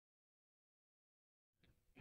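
Silence.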